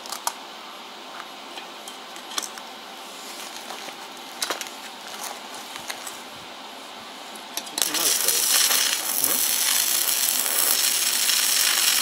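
A few light clicks as the steel parts are handled, then about eight seconds in an electric arc welder strikes and runs a weld: a steady, loud crackling sizzle that carries on.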